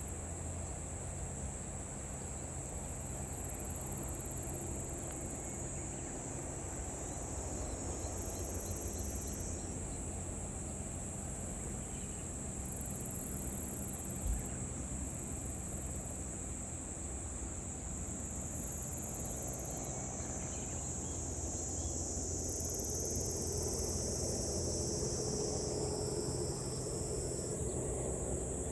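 Insects shrilling steadily in a high band, over a low steady drone that grows a little louder in the last third.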